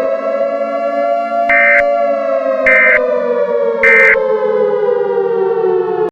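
Civil defense siren wailing, its pitch rising slightly and then slowly falling. Over it come three short, screeching bursts of EAS digital data, about a second apart, typical of the alert's end-of-message code. The sound cuts off suddenly at the end.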